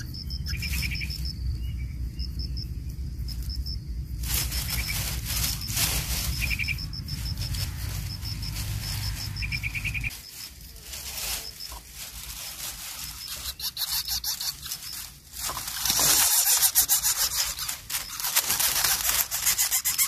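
Insects chirping in quick, evenly repeated high pulses over a low hum, with a few short chirps among them; the hum stops about halfway. Near the end comes a louder stretch of rustling noise.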